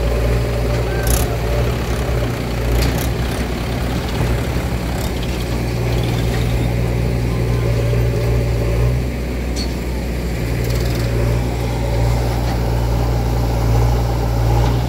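Heavy diesel engine running steadily with a deep hum, with a few sharp knocks along the way.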